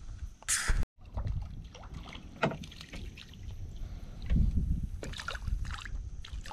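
Small splashes and water sloshing at a kayak's side as a small hooked bream is drawn across the surface to the boat, with light knocks and handling noise on the hull. A short, loud rush of noise comes about half a second in.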